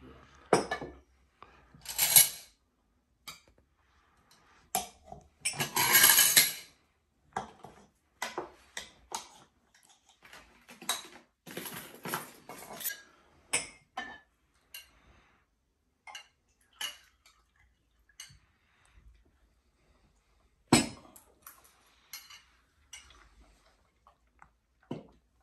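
Metal utensils clinking and scraping against a cooking pot and dishes, a string of irregular knocks and short scrapes, with the longest and loudest scrape about six seconds in.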